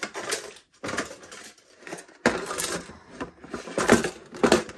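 Small objects and an organizer tray being handled and shifted about in a closet drawer: a string of irregular clicks and knocks with rustling between them, the sharpest knocks about four seconds in.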